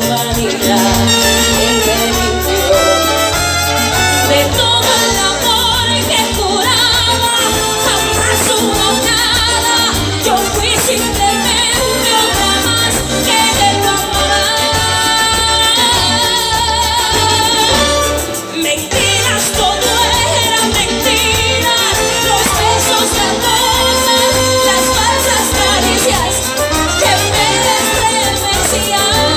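Live dance band playing an amplified Latin-style song with a singer, heard loud from the audience.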